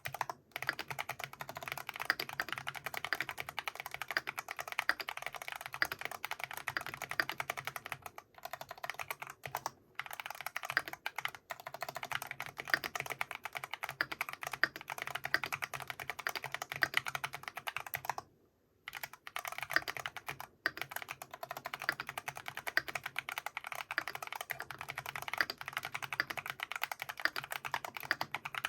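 FL·ESPORTS GP108 mechanical keyboard with Feker Holy Panda tactile switches being typed on rapidly and continuously. The keystrokes come in a dense run with a few brief pauses, the longest about two-thirds of the way through.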